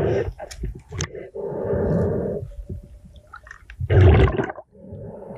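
Muffled underwater rumbling and water noise picked up by a GoPro in its waterproof housing, coming in several bursts of a second or so, as a diver handles silt and a rusty metal object on a riverbed.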